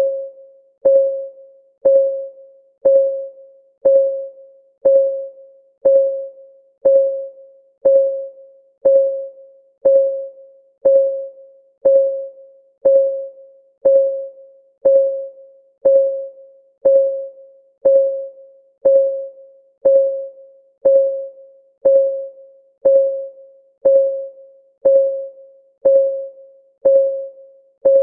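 Countdown timer's ticking sound: one tick a second, evenly spaced, each a sharp click that rings briefly on a single steady note before dying away.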